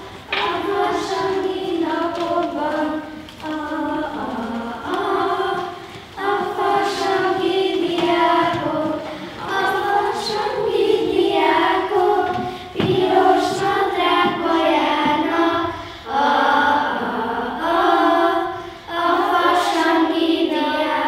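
A group of voices singing a song together in chorus, phrase after phrase with short breaths between.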